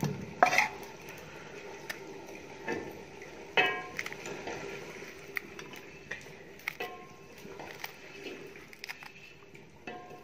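Steel knife knocking and scraping against a steel plate while herbs and green chillies are chopped. Several sharp metallic clinks ring briefly, the loudest about half a second in and again about three and a half seconds in, with lighter ticks between.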